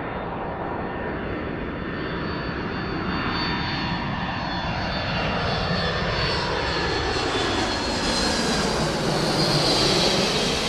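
Low-flying airplane with its engine noise growing steadily louder as it closes in, and whooshing tones that slide down and back up in pitch.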